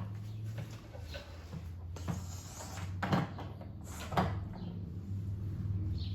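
About five short knocks and clunks of a large plastic wet-and-dry vacuum being handled, over a steady low hum.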